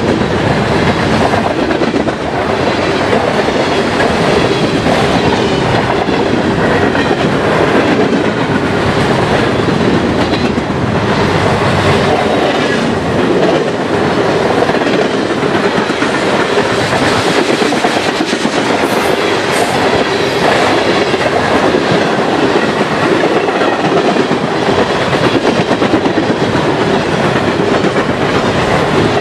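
Freight cars of a long mixed train rolling past: tank cars, gondolas and covered hoppers. Their steel wheels make a steady rumble with rapid clicking over the rail joints.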